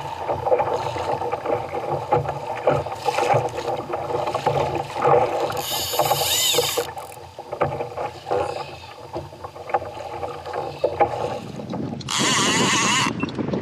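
Choppy sea sloshing against a plastic fishing kayak's hull while a conventional fishing reel is cranked fast to take up slack line on a running roosterfish. A loud rushing burst lasting about a second comes near the end.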